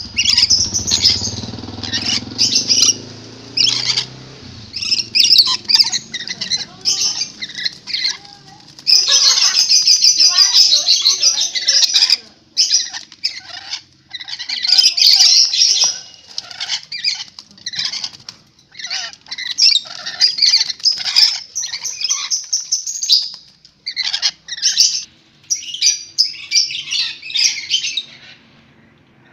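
Rainbow lorikeet giving loud, harsh, shrill chattering screeches in rapid bursts, with a few short pauses and a quieter stretch near the end.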